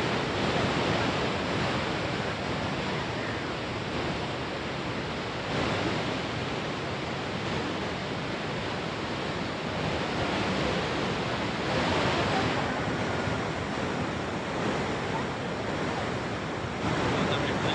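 Steady roar of Niagara Falls: a continuous rush of falling water, swelling slightly a couple of times.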